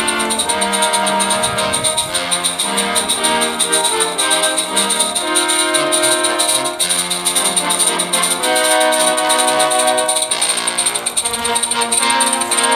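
Background music: an orchestral piece with brass carrying the tune.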